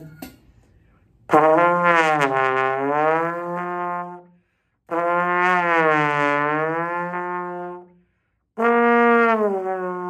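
Trombone played in three long notes with short gaps between them; on the first two the slide moves out and back, so the pitch slides down and then back up, and the third is held nearly steady.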